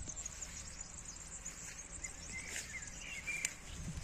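Outdoor ambience: a faint, steady high chirring of insects, with a few short bird chirps past the middle.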